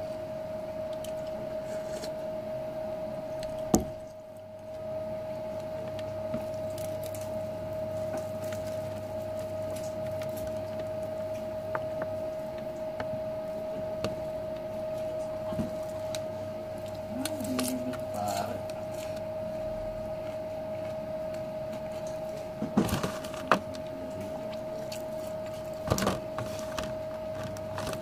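A steady, single-pitched hum underneath scattered small clicks and knocks of a person eating by hand from a metal tray, with a few sharper knocks in the last several seconds.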